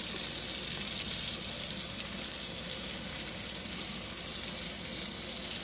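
T-bone steak frying in butter in a pan, a steady sizzle.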